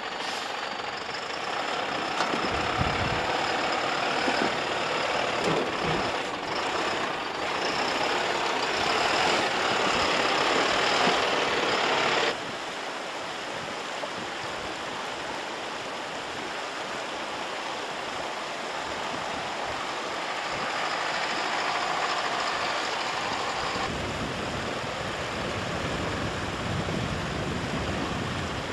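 Mercedes-Benz Unimog U 4023 truck's diesel engine running as it drives over snowy, rocky ground. About twelve seconds in, the sound cuts suddenly to a quieter level.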